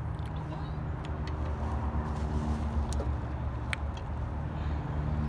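A motor vehicle's engine running steadily, a low rumble with a constant hum, and a few faint clicks on top.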